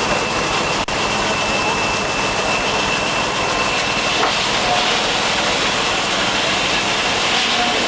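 Antique sawmill powered by a 1916 J. I. Case 80 hp steam traction engine, running: a steady, dense hiss with a high, steady whine that fades out about halfway through, broken by a brief dip about a second in.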